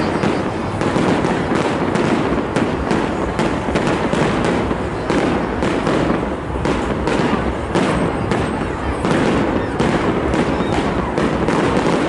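Fireworks display: aerial shells bursting in a continuous barrage of bangs, several a second, with no pause.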